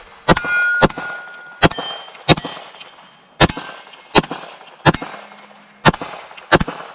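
Pistol fired in quick pairs, about nine shots, at steel targets. Each shot is followed by the clang and brief ring of a struck steel plate.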